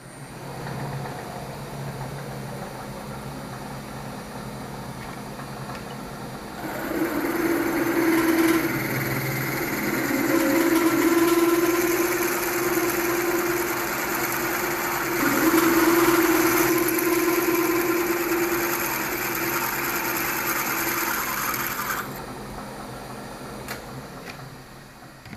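Milling machine spindle running with a 10 mm twist drill that bites into metal about seven seconds in, opening up a 6 mm hole to 10 mm, with a steady tone through the cut. The cut ends about three seconds before the end and the spindle keeps running.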